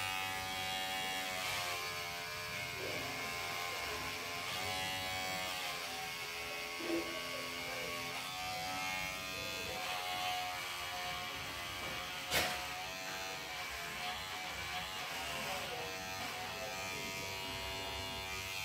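Electric hair clipper buzzing steadily as it cuts through a woman's long, thick hair, its pitch wavering up and down as it works through the hair. A single sharp click about twelve seconds in.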